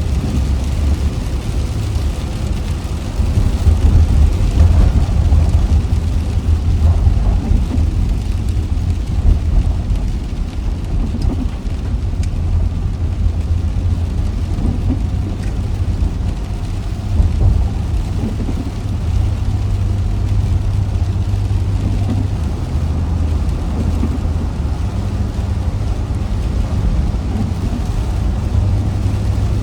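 A car driving in the rain: a steady low rumble of engine and road under a continuous hiss of tyres on the wet road and rain on the car.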